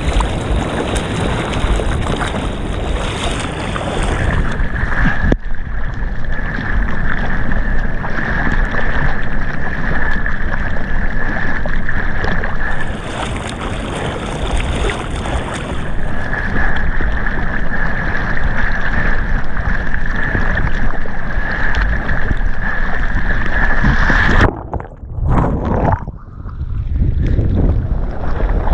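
Sea water rushing past a camera mounted on a bodyboard riding through the surf, with wind buffeting the microphone: a loud, steady rushing noise with a thin, steady whistle-like tone through most of it. Near the end the noise drops away sharply twice, briefly muffled, then comes back.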